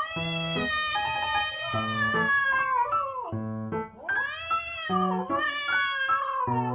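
A cat giving three long, drawn-out meows that bend up and down in pitch, over background piano music.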